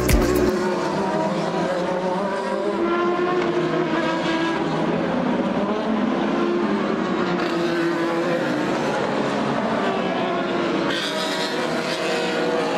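IndyCar race cars' twin-turbocharged V6 engines running around a street circuit, several at once, their pitch rising and falling as they accelerate and change gear.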